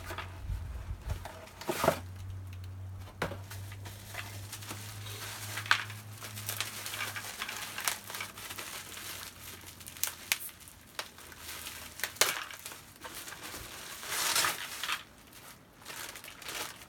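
Clear plastic packaging crinkling and crackling as it is handled and torn open by hand, with sharp crackles throughout and a longer stretch of rustling near the end.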